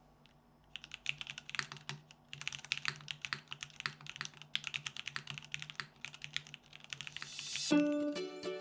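Typing on a Constance TKL mechanical keyboard with an aluminium plate and KKB keycaps: quick runs of key clacks, with a short pause about two seconds in. Near the end a rising swell of noise leads into plucked-string music.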